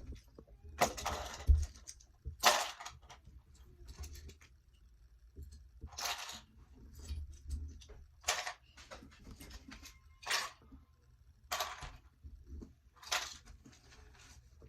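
Noise putty being squeezed and worked by hand: about eight short squishing, crackling sounds at irregular intervals a second or two apart.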